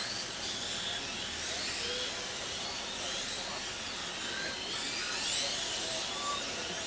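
High-pitched whine of 1/8-scale Kyosho Hang-On Racer electric RC motorcycles racing, the pitch rising and falling over and over as the bikes accelerate and slow through the corners.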